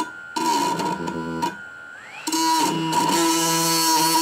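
Background music with electric guitar. A steady tone glides up in pitch about halfway through.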